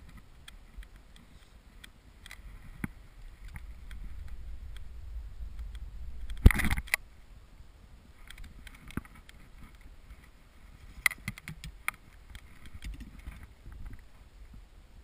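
A recurve bow shot: one sharp, loud bowstring slap about halfway through as the arrow is released. Around it are a low rumble of wind on the microphone and small clicks from handling the arrow and string.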